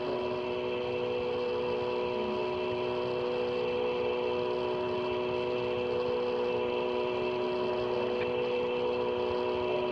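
Steady hum and hiss on an open railroad dispatcher's telephone line, recorded on cassette tape, with several constant tones over the hiss.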